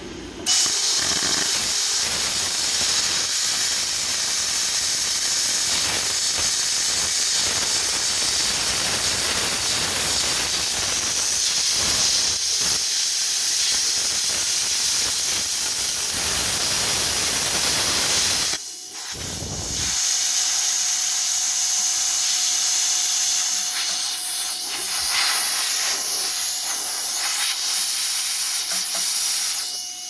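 Handheld CUT50DP plasma cutter torch arc hissing steadily as it cuts through metal. It breaks off briefly about two-thirds of the way through, starts again, and stops at the end.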